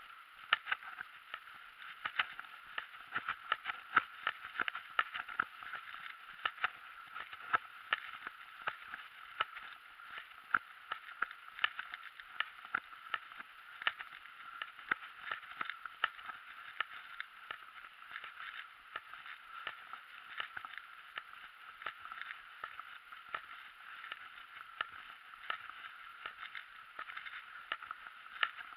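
Mountain bike rolling along a paved road, as heard by a camera mounted on the bike: a steady hiss with irregular clicks and rattles, several a second.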